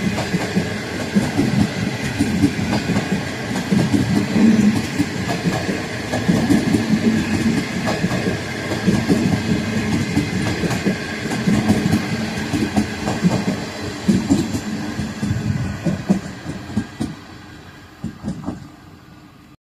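Train of green passenger coaches rolling past close by, a steady rumble with irregular clacks of the wheels over the rail joints. It fades away as the last coach passes and recedes, then cuts off just before the end.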